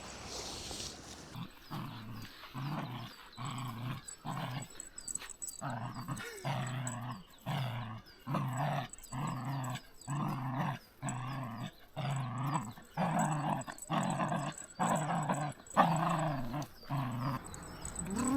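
A dog vocalising in a steady rhythm, about three low, pitched sounds every two seconds, starting a second or so in and stopping shortly before the end.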